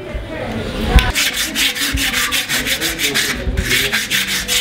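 A small carved wooden piece being hand-finished by abrasion: quick, even rubbing strokes at about five a second. A single knock about a second in starts them, and they pause briefly near the end.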